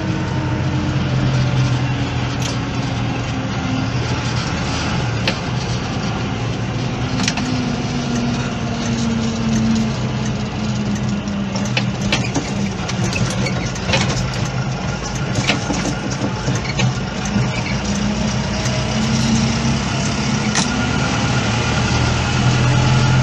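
Diesel engines of maize silage harvesting machinery running steadily, the pitch wavering slowly up and down, with scattered sharp clicks and knocks.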